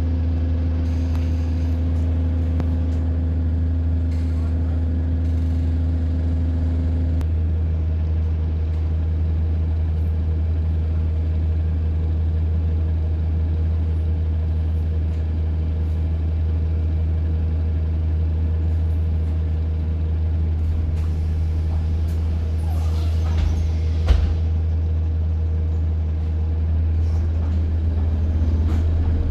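A diesel bus engine running steadily, heard from inside the passenger cabin as a strong low hum with steady tones over it. One tone cuts out about seven seconds in, there is a single knock a little past the middle, and the engine note rises slightly near the end.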